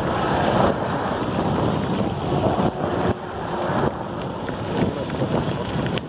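Wind buffeting the microphone of a phone mounted on a moving bicycle: a loud, uneven rushing noise that swells and dips, briefly easing about three seconds in.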